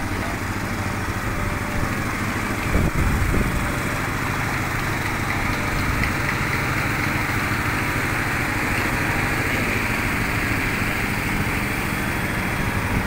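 Komatsu PC200-8MO excavator's diesel engine idling steadily.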